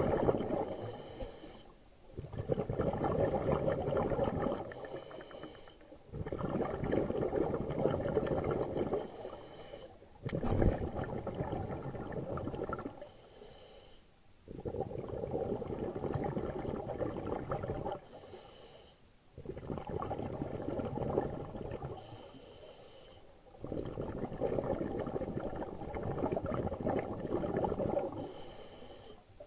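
A scuba diver breathing through a regulator, heard underwater: each breath is a brief hissing inhale, followed by about three seconds of bubbling exhaust. The cycle repeats about every four seconds, roughly seven times.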